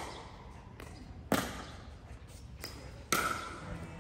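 Two sharp hits about two seconds apart, each ringing briefly: a ball being struck back and forth in a doubles rally.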